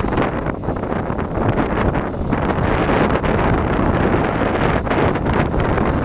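Strong wind buffeting the microphone in gusts over a steady rushing roar.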